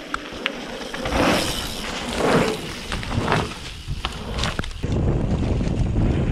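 Mountain-bike tyres rolling and skidding on a dirt trail as a rider passes, with a few sharp clicks and rattles. About five seconds in, a steady low rumble of wind and tyre noise on the bike-mounted camera as the bike runs down the trail.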